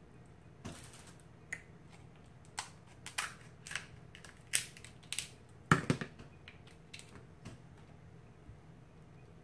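Cooked crab leg shells being snipped with kitchen scissors and cracked apart by hand: a string of sharp, irregular cracks and clicks, the loudest about six seconds in.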